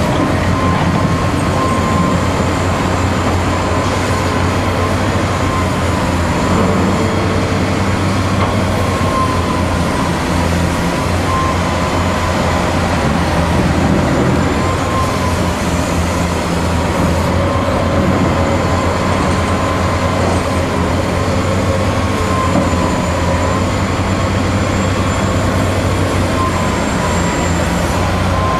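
Hitachi Zaxis 250LCN excavator's diesel engine running steadily under load as it digs, swings and dumps soil into a dump truck, with a high whine that wavers slightly in pitch.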